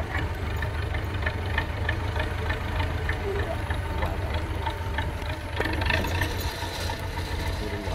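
Belarus 825 tractor's diesel engine running steadily under load as it pulls a loaded cassava trailer away along a dirt track, with a light rattle.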